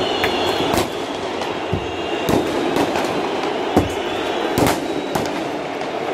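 Roar of a large stadium crowd, broken by sharp bangs about once a second, the loudest about four seconds in.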